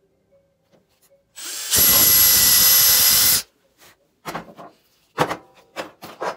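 Makita 18V cordless drill drilling through a wooden insert blank into a scrap backer board: it starts softly, runs at full speed with a steady high whine for about two seconds, and stops. Several short knocks and clatter follow as the drill and wood are handled and set down on the wooden bench.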